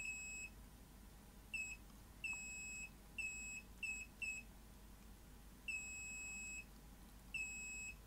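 Digital multimeter's continuity beeper giving irregular high-pitched beeps, some short and some about a second long, as the test probe makes and loses contact on a circuit-board solder joint. The contact is intermittent, perhaps because of a coating on the solder.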